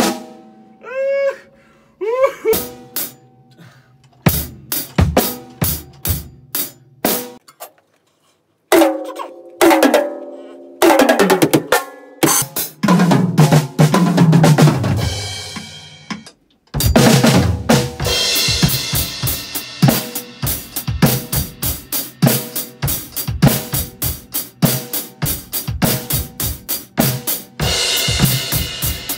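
An acoustic drum kit being played: snare, bass drum, toms and cymbals, in several separate stretches broken by short gaps. The first half is sparser, with some ringing pitched tones; about halfway through the playing turns fast and dense under a bright wash of cymbals.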